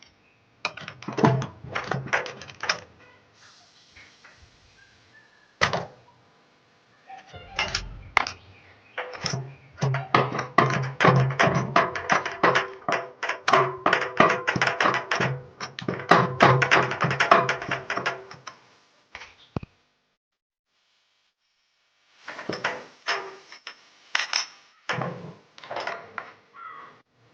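Metal tools clicking and knocking in quick, irregular runs, with a pause partway through: a plug spanner turned by a screwdriver through its hole, loosening and unscrewing a generator's spark plug.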